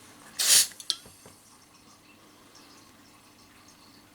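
A short, sharp hiss of green gas about half a second in as the Ultra Air bottle's nozzle is pressed onto the airsoft pistol magazine's fill valve, followed by two or three light plastic clicks.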